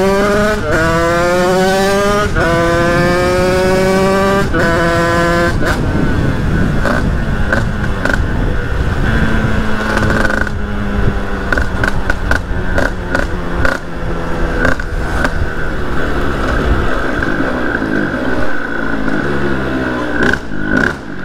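Two-stroke 50cc Sherco supermoto engine accelerating hard up through the gears, its pitch climbing in each gear with three or four upshifts in the first six seconds. It then runs at uneven, lower revs, and the pitch falls as it slows near the end.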